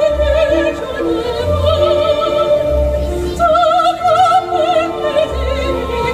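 Soprano singing an operatic melody with wide vibrato over orchestral accompaniment, holding a long high note in the middle.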